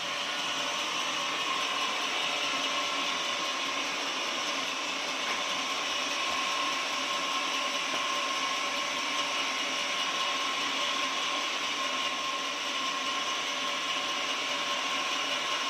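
Horizontal sawmill running steadily: an even machine noise with a steady whine.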